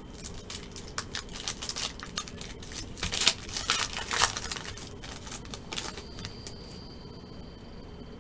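Foil wrapper of a trading-card pack crinkling and tearing as it is pulled open by hand. It is loudest about three to four seconds in and dies down after about six seconds.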